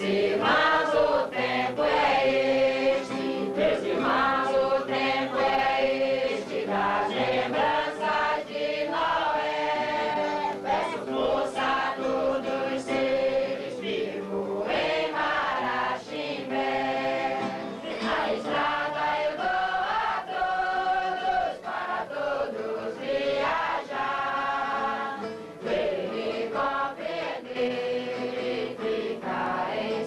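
A group of voices singing a Santo Daime hymn together, in steady continuous phrases.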